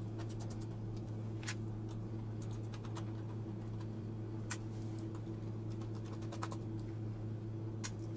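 Small, scattered clicks and ticks of hands handling a laptop's screen and plastic lid parts, over a steady low hum.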